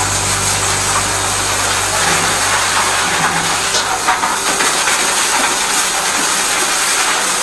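High-pressure drain jetter spraying water through a turbo drill nozzle into a clogged toilet drain: a loud, steady hiss, with a low steady hum that fades out about four seconds in.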